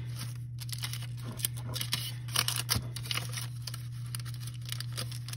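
A small stack of paper sheets, among them crinkly parchment paper, rustling and softly tapping as it is handled and shifted to stagger the pages. The rustles come irregularly and are busiest in the middle.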